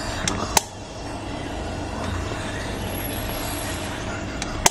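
Aluminium stovetop moka pot's hinged metal lid clicking open about half a second in, then clicking again near the end as it is shut, over a steady low rumble and hiss.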